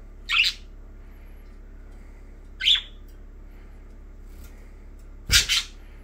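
Budgerigar giving three short, sharp chirps about two and a half seconds apart, the last a louder double call.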